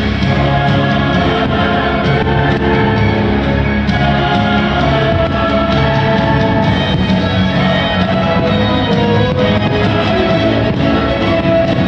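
Loud orchestral show music with voices singing, playing steadily as the soundtrack of a nighttime fireworks and projection show.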